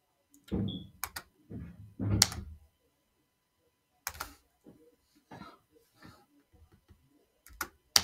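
Scattered sharp clicks of a computer mouse, a handful spread across several seconds. A few soft, low thumps come in the first three seconds.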